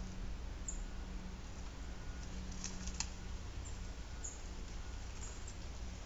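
Feeder-side outdoor ambience: a steady low hum, a few faint, very high, brief bird chirps, and a couple of sharp taps about halfway through.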